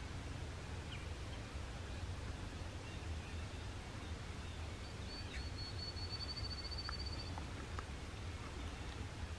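A small songbird's high, rapid trill of evenly spaced notes, lasting about two and a half seconds midway, over a steady low outdoor rumble.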